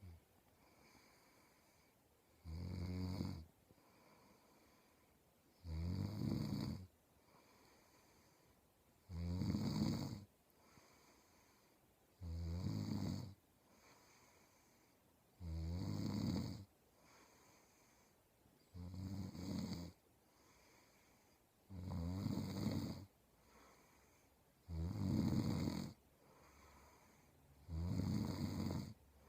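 A man snoring in his sleep: nine even, rasping snores, each about a second long, coming about every three seconds with quiet breathing between.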